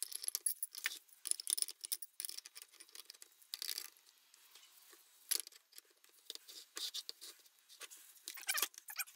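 Light, scattered clicks, taps and rustles of hand tools being handled: a pulley installer tool fitted onto a power steering pump's shaft and an adjustable wrench set on its nut, with small metal clinks.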